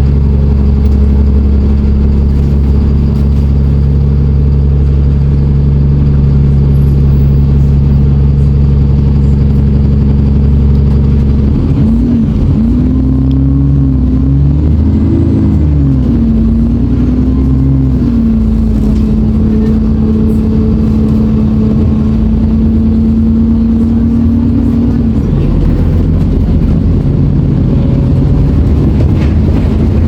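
Alexander Dennis Enviro400 double-decker bus running loud, a steady low drone at first. About twelve seconds in, the engine note rises and falls for several seconds, then settles to a steady tone that fades out a few seconds before the end.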